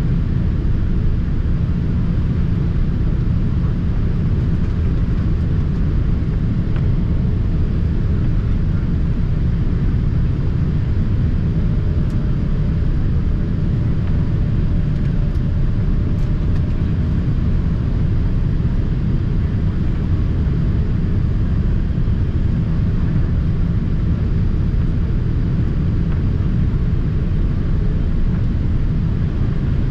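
Steady low rumble inside the cabin of a Boeing 787-8 airliner in flight, the engine and airflow noise heard from a window seat.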